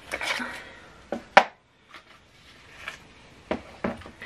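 A small box handled close to the microphone, with light rustling and one sharp snap about a second and a half in, then a couple of faint knocks near the end.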